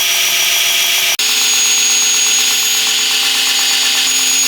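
Grinder running steadily while the bevels of a thin, hardened steel knife blade are finish-ground, a loud hiss with a steady whine. The sound breaks off abruptly about a second in and resumes at once with a slightly different whine.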